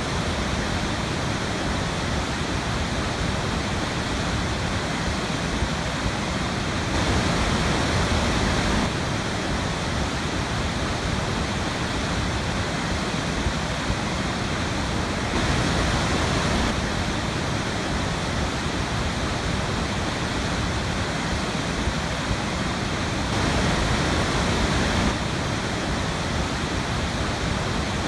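Waterfall on a river: a steady, full rush of falling water, swelling slightly louder three times.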